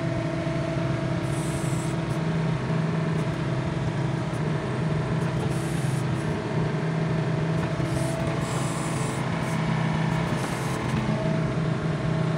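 Yanmar B22 mini excavator's diesel engine running steadily while the hydraulic control levers are worked, its note swelling slightly now and then.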